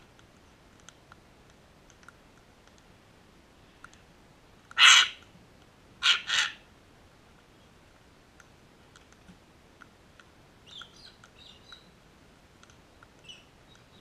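Sulphur-crested cockatoos screeching: one harsh screech about five seconds in, then two more in quick succession a second later. Faint scattered clicks run under it, and there are a few faint chirps near the end.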